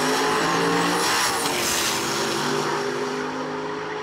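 Two small-tire no-prep drag cars launching side by side and accelerating hard at full throttle down the strip. The engine sound holds loud for about two seconds, then fades as the cars pull away.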